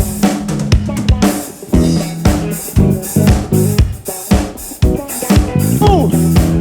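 Drum kit solo: fast bass drum, snare and rimshot hits over held low notes from the band. Near the end, sliding pitched notes come in as the band starts playing again.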